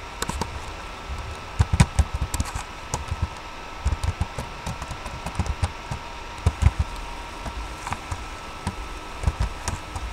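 Irregular tapping and clicking on a computer keyboard, with low thumps among the clicks, over a faint steady electrical hum.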